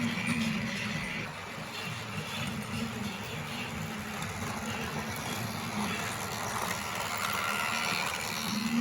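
Battery-powered Lego Duplo toy train running along plastic track: a steady mechanical rumble and whir.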